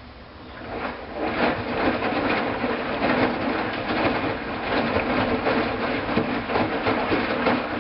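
Hoover washing machine in its first rinse: the drum starts turning about half a second in, and within a second settles into a steady churn of water and wet laundry sloshing and clattering inside the drum.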